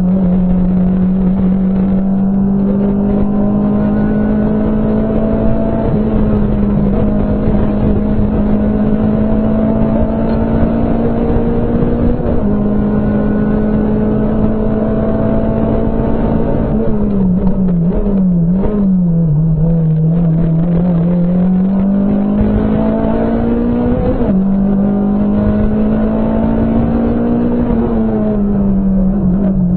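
Rally car engine heard from inside the cabin, held high in the revs on a special stage. A little past halfway the revs dip and waver, then climb again, with small steps in pitch at the gear changes.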